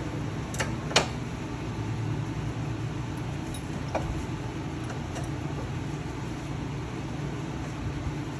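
A few sharp metallic clicks of hand tools on a stabilizer link nut, the loudest about a second in, over a steady low rumble.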